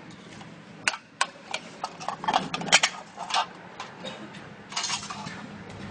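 Metal can knocking and clattering on a stone floor as a trapped rat is shaken out of it: a string of sharp clicks and knocks, thickest in the middle, with a short rasping scrape near the end.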